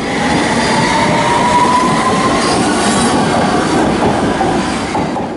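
London Underground S Stock train running fast past a station platform: a loud rumble of wheels on rail, with a thin wheel squeal that rises slightly in pitch over the first few seconds.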